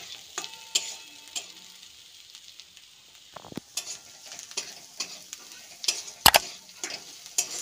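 Metal spatula scraping and knocking against a metal kadai as chopped onion and garlic are stirred and fried in oil, over a light sizzle. The clicks and scrapes come irregularly, the loudest knock a little past six seconds in.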